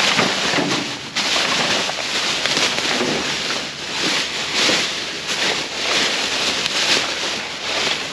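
Plastic trash bags and bubble wrap rustling and crinkling loudly as gloved hands dig through them, in repeated swells.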